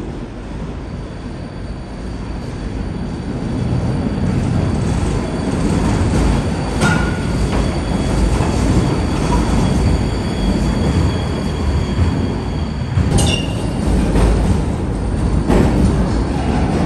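Siemens ULF low-floor trams running through an underground tram station: steel wheels rolling on the rails, growing louder as a tram passes close by, with a thin high wheel squeal and a few sharp clacks as the wheels cross the track points. The echo of the concrete station hall colours the sound.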